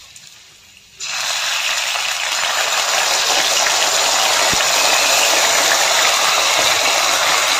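Red chilli sauce hitting a hot kadhai of fried garlic and fat, bursting into a loud sizzle about a second in that then keeps up as a steady hiss.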